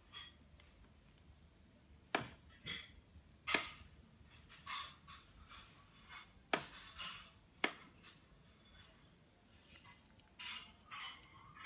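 A few scattered sharp clicks and light taps with soft rustling between them, small handling noises. The loudest clicks come a little after two seconds, at about three and a half seconds, and twice more around the middle.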